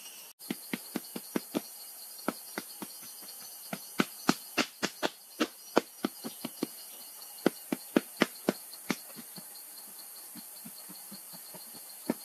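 Sharp knocks of a wooden stick striking and tamping packed earth, in irregular runs of a few blows a second that come thickest in the middle, over a steady high buzz of insects.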